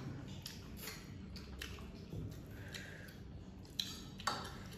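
Eating noises at the table: chewing and fingers squishing and mixing rice on plates, with scattered small clicks and two sharper clicks near the end.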